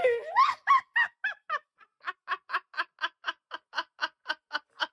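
A person laughing in rapid, even pulses, about five a second, that grow fainter near the end.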